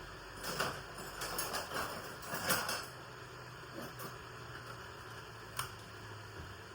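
Kitchen handling noises: about two seconds of rustling and scraping, then a couple of short, light clicks, over a faint steady hum.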